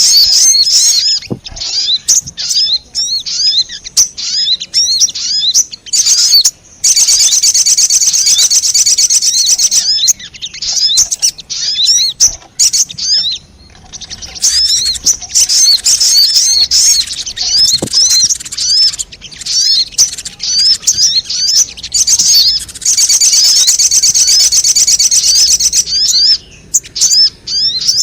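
Sogon songbirds calling as a lure recording: rapid high-pitched chirps and buzzing trills. The calls come in dense bursts lasting several seconds, with short pauses between.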